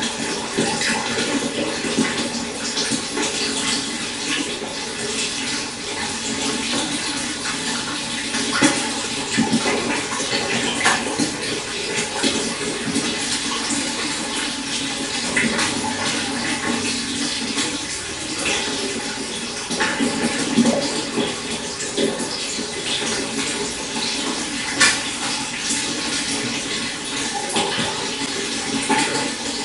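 Shallow stream running steadily over stones, with a few brief louder splashes now and then.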